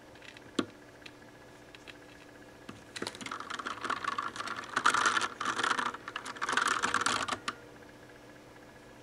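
Das Keyboard mechanical keyboard with Cherry MX Brown switches: a few scattered key clicks, then a fast, dense run of keystrokes for about four and a half seconds that stops suddenly.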